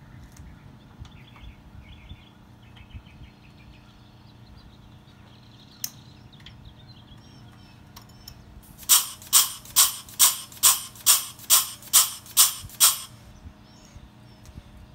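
LockNLube air-powered grease gun pumping grease into a tractor loader's grease fitting: ten quick, loud strokes about two a second, starting about nine seconds in and stopping abruptly. Faint light clicks come before it.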